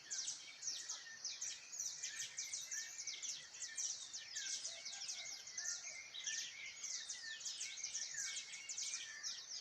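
Dense chorus of many small birds chirping, short high downward-sliding chirps overlapping without a break.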